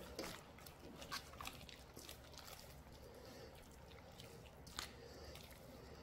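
Hands rubbing wet chili seasoning paste into salted napa cabbage leaves for kimchi: faint soft squelching with a few scattered small clicks.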